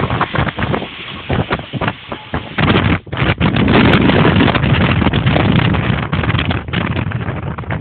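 Wind buffeting the microphone: loud, uneven noise with irregular jolts, heaviest from about three seconds in.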